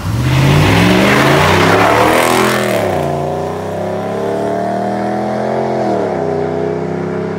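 Two pickup trucks, a Ford Super Duty and a Ram, launching side by side from a standing start: the engines rev up with rising pitch, shift up about three seconds in and again near six seconds. There is a loud rush of noise over the first few seconds of the launch.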